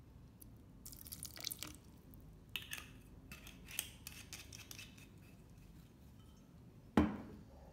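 Faint, scattered clicks, clinks and rustles as kitchen items are handled on a counter, with a sharp knock about seven seconds in.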